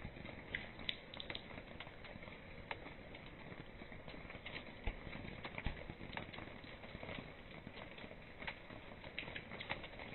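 Steady rain falling onto a wet tiled floor and puddles, with irregular sharp taps of large drops close by, falling from the tarp overhead.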